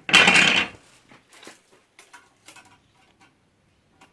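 A short, loud clatter with a scrape as band saw parts are handled, followed by a few faint clicks and knocks.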